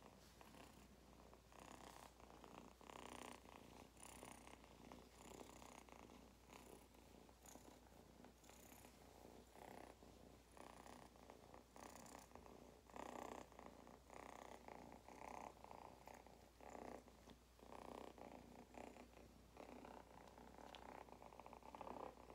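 Young tabby kitten purring faintly and steadily, the purr rising and falling in regular pulses.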